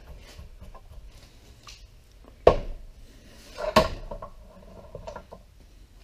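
Workbench handling sounds as a drilled wooden dowel is taken out of a bench vise: two sharp knocks, the louder about two and a half seconds in and another just before four seconds, with light clicks and rustles around them.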